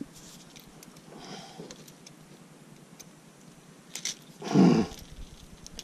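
A man's short, strained grunt about four and a half seconds in, with faint clicks and rustling of handling fishing gear before it.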